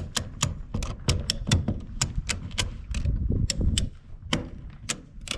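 A ratchet being worked by hand, clicking about four times a second with a short pause near the end, as it draws a structural insulated roof panel over into place.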